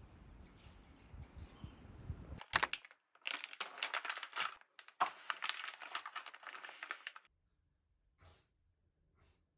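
Plastic freezer bags of frozen food crinkling and rustling as they are handled, in two spells of about two seconds each, followed by near silence. A faint tail of piano music fades out at the start.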